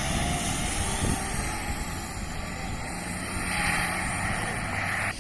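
A 4x4 off-road vehicle's engine running steadily under load. A hiss joins it about three and a half seconds in, and the sound cuts off suddenly near the end.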